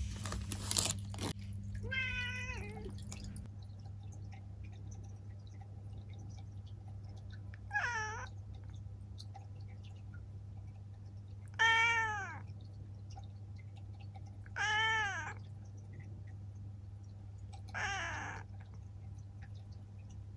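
Black cat meowing five times, a few seconds apart, each meow arching in pitch. A steady low hum runs underneath, and there is a short burst of noise at the very start.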